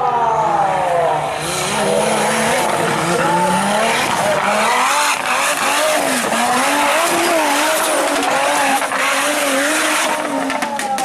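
Off-road 4x4 engine revving hard, its pitch rising and falling over and over as the driver works the throttle, under a loud hiss.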